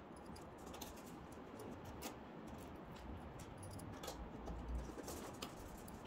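Faint, scattered clicks and light scratching of a small screwdriver taking the metal hinge screws out of a laptop's display hinge, with a soft bump about four and a half seconds in.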